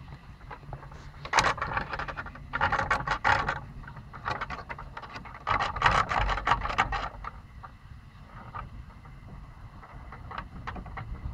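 Two pomsky puppies scuffling and pawing against wooden fence slats: scratchy rubbing and scraping in four bursts over the first seven seconds, then only a few light scratches.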